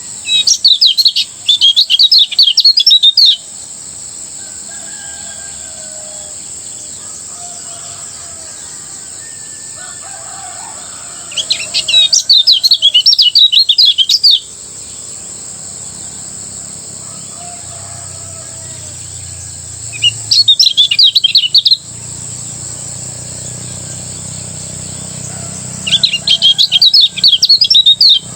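Kecial kuning (lemon-bellied white-eye) singing its fast, rattling 'ngejos' song in four bursts of about two to three seconds each, separated by pauses. A steady high hiss runs underneath.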